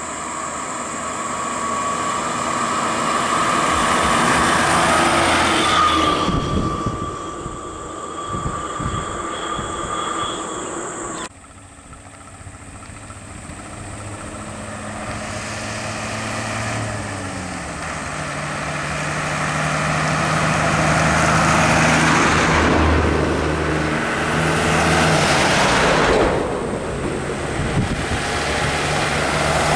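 Large diesel bus engines running as buses drive up and pass close by, the sound swelling as each nears. The sound cuts off abruptly about eleven seconds in and picks up again with another bus approaching, its engine note falling as it slows.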